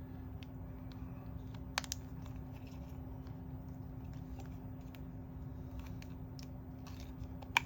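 Small toy pieces and packaging being handled: faint clicks and rustling, with a sharper click about two seconds in and another near the end, over a steady low hum.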